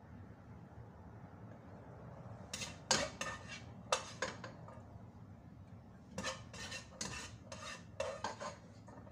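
Serving utensil scraping and knocking against a cooking pot while vegetable rice is scooped out, in two bursts of clinks and scrapes: one about three seconds in and another from about six seconds.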